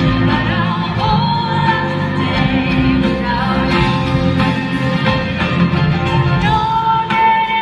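Live pop ballad: a woman singing over a band, ending on a long held note.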